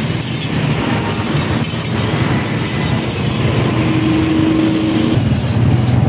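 Steady traffic noise: vehicle engines running and road noise in moving street traffic. A single steady tone is held for about a second and a half past the middle.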